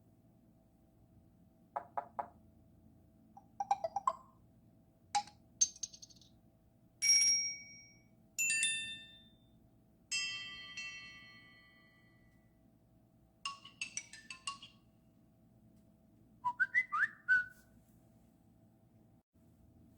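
A series of different short mobile phone notification tones played one after another with brief pauses between them. They include quick beeps and pips, chimes and a bell-like ding that rings out, and a quick warbling rising figure near the end.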